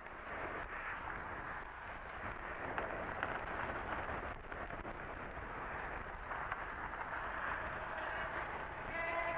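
Wind buffeting an action-camera microphone: a steady rushing noise with a low rumble. Near the end comes a short, high squeal made of several pitches at once.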